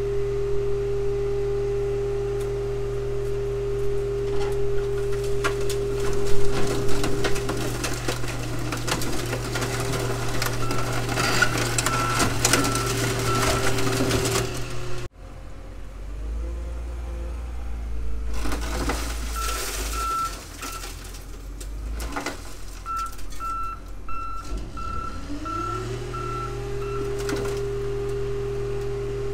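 Hydraulic car crusher running steadily as its lid presses down on two stacked junk cars, with dense crunching and cracking of metal and glass. A reversing alarm beeps in runs. After an abrupt cut, a low engine rumbles and the reversing beeps return, then an engine note rises and settles back into the crusher's steady hum.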